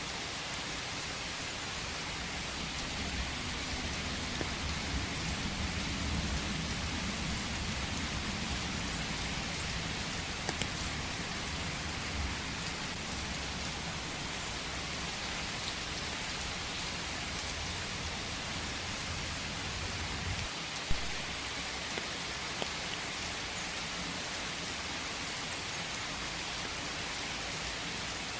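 Steady rain falling in a forest, an even hiss of drops on surfaces. A low rumble swells in the first half and fades, and a single sharp drip or tap stands out about three quarters of the way through.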